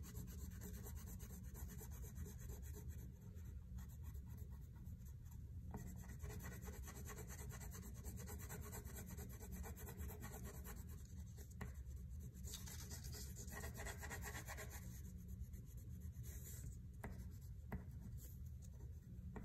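Wax crayon scribbling on paper, faint rapid back-and-forth strokes shading in a colored area.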